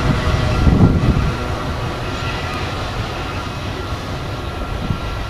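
Rear of a BNSF autorack freight train rolling away on the main line: a steady rumble of steel wheels on the rails, with thin high tones fading out in the first couple of seconds.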